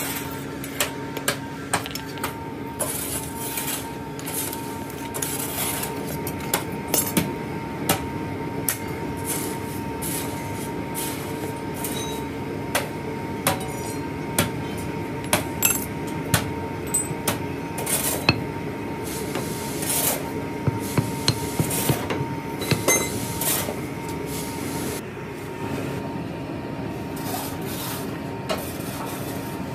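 Irregular knocks and metallic clinks of hand tools against steel moulding flasks and packed moulding sand while sand-casting moulds are made, over a steady machinery hum with a constant tone.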